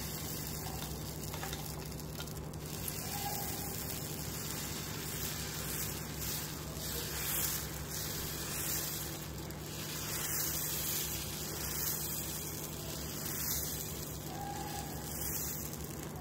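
Dosa batter sizzling on a hot tawa while a ladle spreads it in circles, a steady hiss that swells unevenly with the ladle's strokes.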